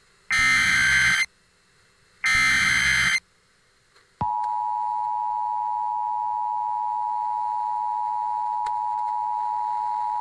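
Emergency Alert System tones: two loud, roughly one-second bursts of SAME digital header data about a second apart. About four seconds in they give way to the steady two-tone EAS attention signal.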